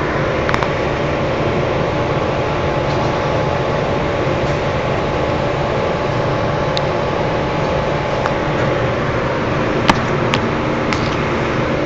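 Wire-cutting machine running with a steady mechanical hum and an even tone, with a few sharp clicks, the loudest about ten seconds in.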